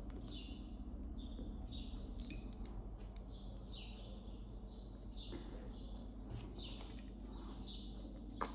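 A bird chirping over and over, faint: short falling chirps about twice a second. A light click near the end.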